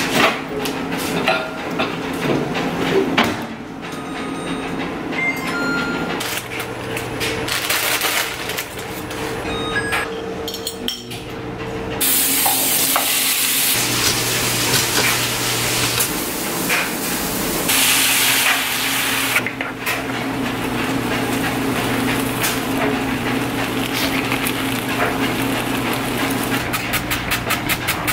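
Kitchen cooking sounds over a steady appliance hum: hissing sizzle of food frying in a pan, with clinks of dishes and utensils. Near the end come a few quick squirts of a pump spray bottle of butter spray onto toast.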